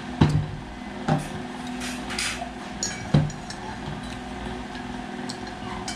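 Tableware knocking on a table: three sharp knocks, just after the start, about a second in and about three seconds in, over a steady low hum.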